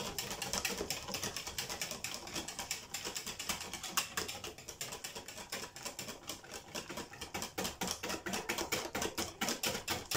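Wire whisk beating crêpe batter in a bowl, its wires tapping against the bowl's sides in a quick, even run of clicks, several strokes a second, as the batter is whisked smooth of lumps.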